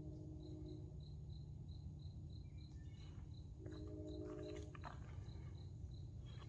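A cricket chirping in a steady rhythm of short high chirps, about four a second, over a low rumble. A low hum comes in about halfway through, and there are a few light clicks around the middle.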